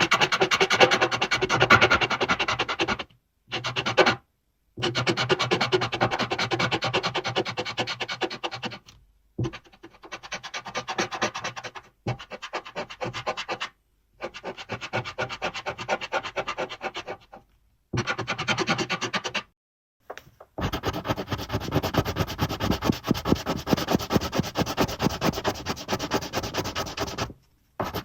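Rapid scratchy rubbing strokes in runs of a few seconds, broken by short pauses. The treble grows brighter about twenty seconds in.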